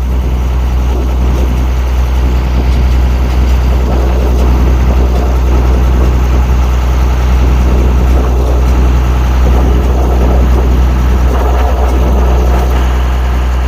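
Combine harvester engine running steadily under load with a constant low drone.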